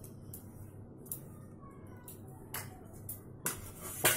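Light taps and faint scraping of an aluminium bread tin and its lid being handled and greased with a silicone brush, with a sharper metallic knock near the end as the tin is set down on the counter.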